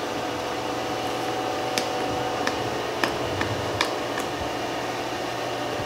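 Fingernails picking at the seal of a cardboard box, giving about half a dozen short, sharp ticks in the middle of the stretch, over a steady background hum.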